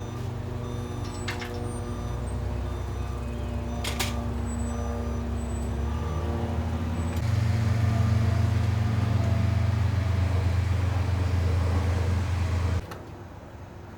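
A motor vehicle's engine running steadily, a low drone that gets louder about seven seconds in and cuts off abruptly near the end. A few brief clicks sound over it early on.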